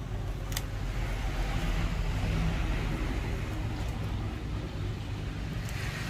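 Low hum and noise of a passing road vehicle, swelling over the first few seconds and easing off, with a light click about half a second in.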